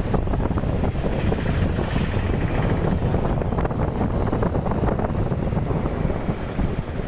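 Loud, steady rush of floodwater, with wind buffeting the microphone in gusts.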